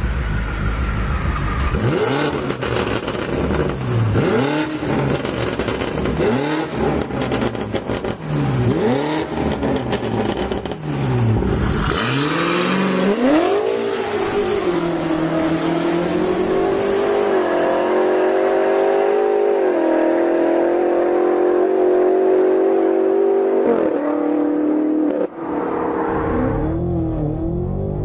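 BMW M8 Competition Gran Coupe's 4.4-litre twin-turbo V8 through an Akrapovič exhaust, revved up and down about five times a couple of seconds apart. It then rises and holds a steady high pitch for about ten seconds, drops off suddenly, and gives one more short rev.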